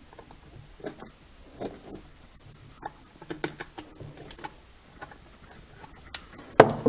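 Handling noise from a soft silicone rubber toy being pulled and peeled away from its glued plastic inner housing: a scattered series of small scratches, rubs and clicks. A louder knock comes near the end.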